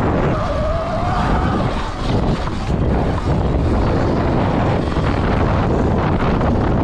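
Wind rushing over the microphone of a stock 2020 Sur Ron X electric dirt bike being ridden on a dirt track, with the electric motor's whine rising in pitch in the first second as the bike accelerates.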